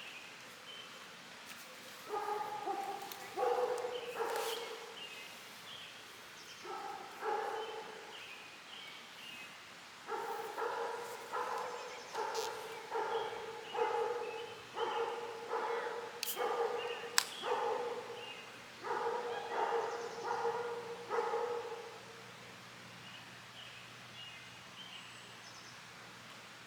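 A dog barking repeatedly: a few barks at first, then a long steady run of barks at about two a second that stops a few seconds before the end.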